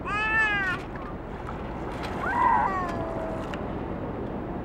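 A toddler calling out twice in high, falling wordless calls: one right at the start and a second, longer one about two seconds in. Behind them is a steady rush of wind and sea.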